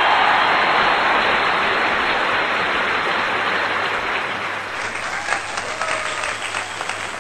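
Ground pork in tomato sauce sizzling and bubbling in a frying pan: a loud, steady hiss that slowly fades, with scattered crackles in the last few seconds.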